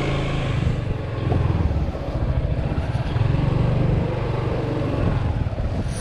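Yamaha XMAX 300 scooter's single-cylinder engine running steadily, a continuous low rumble.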